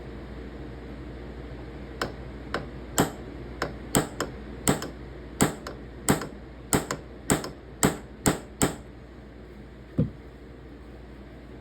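Ball peen hammer tapping on a brass knife pin to peen it over: about twenty sharp taps at roughly three a second, then a single last tap a little later.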